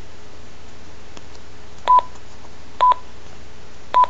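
Keypad beeps from a Relm BK RPV3600A+ portable two-way radio as its buttons are pressed: three short single-pitch beeps, each with a faint click, at about two, three and four seconds in. A steady hiss with a faint hum runs underneath.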